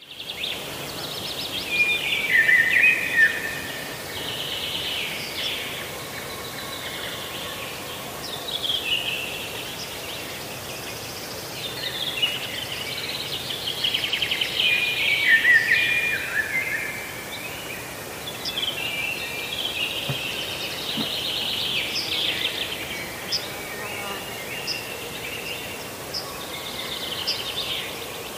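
Songbirds singing: repeated phrases of chirps and rapid trills, coming and going every few seconds over a steady background noise.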